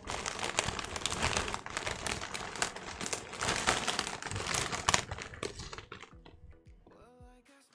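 Two chip packets made of metallised plastic film crinkling and rustling as they are handled, with many sharp crackles. The crinkling is loud for about the first five seconds, then dies down.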